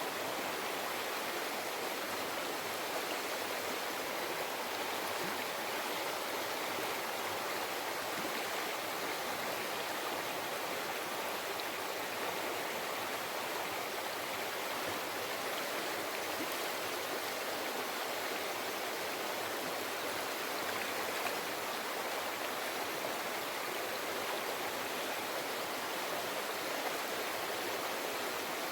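River water flowing and babbling over rocks, a steady even rush.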